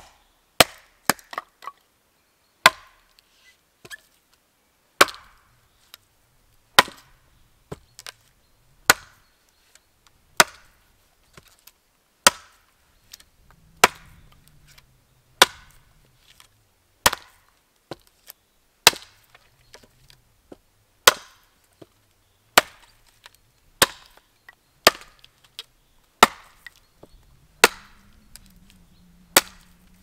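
A Gränsfors Bruk axe chopping into green sapling wood on a chopping block: sharp wooden strikes every one to two seconds, with a quick run of blows near the start.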